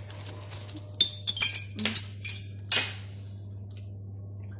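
Cutlery and metal pizza pans clattering on a table: a run of sharp clinks and clanks between about one and three seconds in, the loudest at the start of the run and near its end, over a steady low hum.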